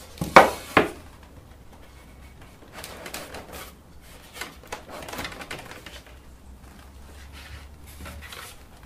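Beehive box panels being handled and fitted together on a workbench: two sharp knocks about half a second in, then quieter scraping, rubbing and light knocks as the panels are pushed into place.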